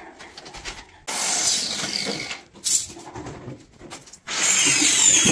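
Hand-held power tool working wood in goes: a run of about a second and a half, a brief burst, then steady running from about four seconds in.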